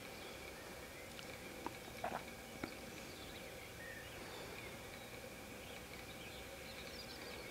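Faint woodland ambience: a steady background hiss with faint, high bird chirps, mostly near the end, and a few sharp clicks about two seconds in.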